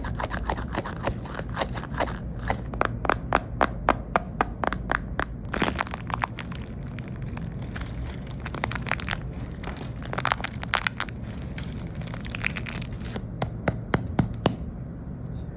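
Dense crackling and crunching from a squishy toy being squeezed so that its outer coating cracks, sharp cracks coming in quick clusters and stopping about a second before the end.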